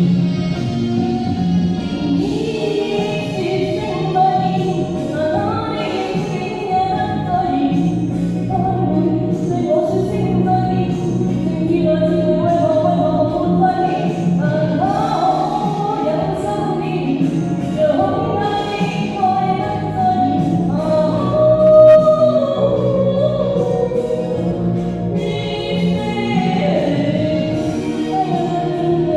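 A voice singing a melody over a karaoke backing track, with KTV-style reverb on the vocal.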